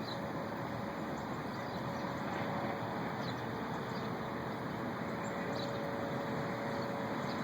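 Steady, unbroken droning rumble of unknown origin, heard from the sky for hours, carrying two faint steady tones in its middle range. A few short, high bird chirps sound over it.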